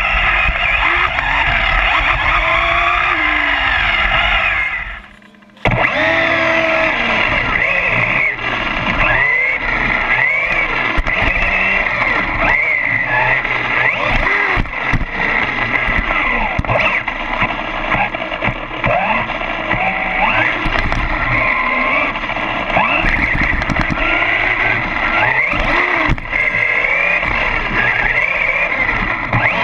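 Electric RC short-course trucks (Traxxas Slash 4x4) running, their motors and gears whining in overlapping pitches that rise and fall as they accelerate and slow. The sound drops out briefly about five seconds in.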